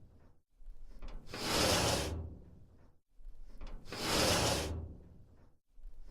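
Metal sliding door of a dumpster run along its track: a scraping rush that swells for about a second and fades, repeated about every two and a half seconds, each pass cutting off abruptly.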